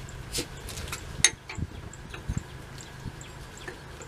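A few light metal clinks and knocks from the rear drum brake shoes and springs of an M109A3 deuce-and-a-half being handled, the sharpest about a second in, with a duller knock a little past the middle.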